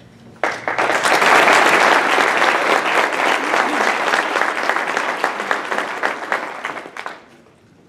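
Audience applauding, starting suddenly about half a second in and fading out about seven seconds in.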